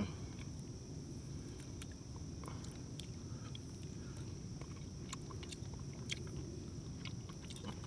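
A person quietly chewing a bite of pan-fried battered crappie, with a few light clicks of a plastic fork against the camp pan scattered through.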